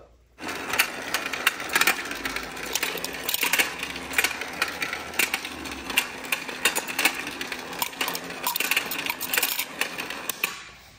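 Small toys clicking and clattering as a child handles and plays with them: a rapid, irregular run of light clicks.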